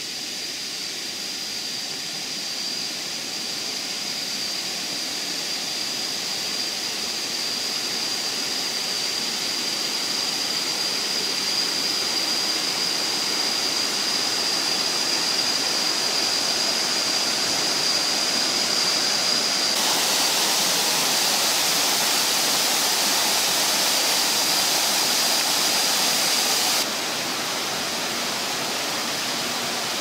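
Rushing water of a tiered waterfall cascading into pools: an even, steady rush, with a constant high thin whine above it. The rush grows slowly louder, swells brighter for several seconds after the middle, then drops suddenly about three seconds before the end.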